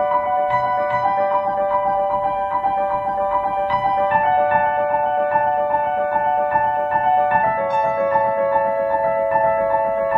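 Background music: sustained keyboard chords with notes struck about twice a second, the chord changing about four seconds in and again at about seven and a half seconds.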